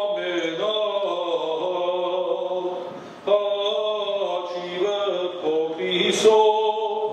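An Armenian priest's solo liturgical chant: one male voice on long held notes that slide from pitch to pitch, with a short break for breath about three seconds in.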